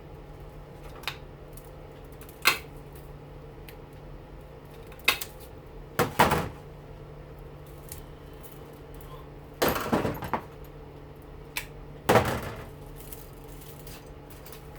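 Irregular sharp metallic clicks and clanks, about eight, some in quick clusters near the middle, from hand tools working a front-load washing machine motor. A steady low hum runs underneath.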